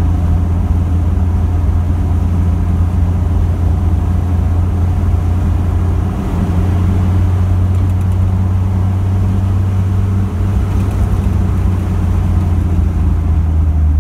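Work truck engine running at a steady speed while driving, a constant low drone with road noise.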